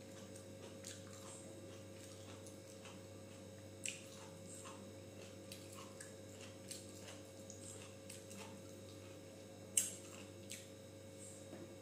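Quiet eating by hand: soft chewing and mouth smacks with fingers squishing rice and curry on a steel plate, scattered small clicks, two sharper ones about four seconds in and near the end. A steady low hum runs underneath.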